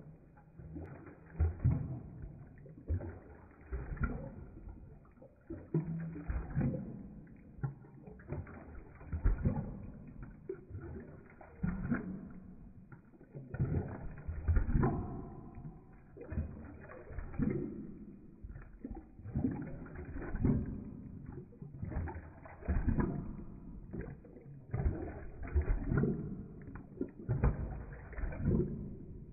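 Dog lapping water from a bowl, played back in slow motion: each lap is a deep, drawn-out slosh and splash, about one a second.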